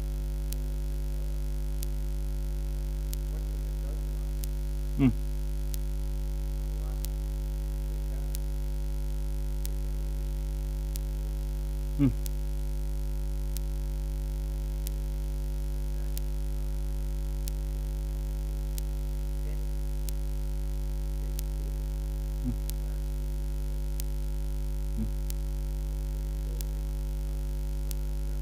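Steady electrical mains hum with a stack of even overtones. Four short thumps break through it: two louder ones about five and twelve seconds in, and two fainter ones later.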